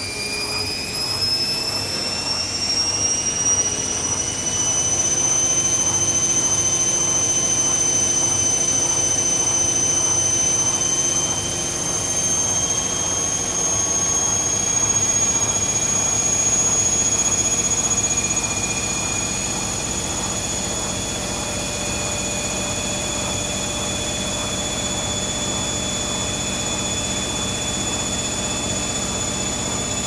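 Zanussi ZKN7120L washing machine on its spin: the motor's whine rises in pitch over the first few seconds as the drum speeds up, then holds high and nearly steady at speed.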